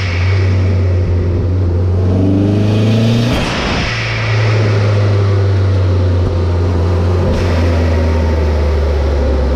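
Toyota 3S-GTE turbocharged engine revving up under boost, then the TiAL 50 mm blow-off valve venting in a short rush of air about three seconds in as the throttle closes, followed by the engine running at a steady drone. The valve, on its −11 psi spring, opens only on throttle lift and is working properly.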